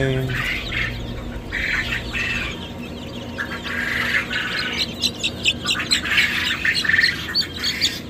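Poultry flock calling: repeated harsh squawks, joined over the second half by a quick run of short high chirps.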